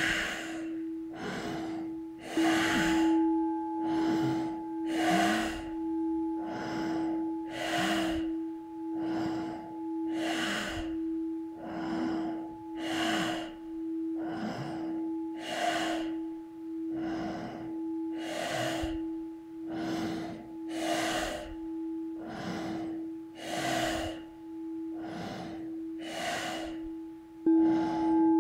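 Rapid, forceful breaths in and out through the nose, about one a second, as intensive nasal breathing practice. Under them a singing bowl rings with a steady tone that swells again about two seconds in and near the end.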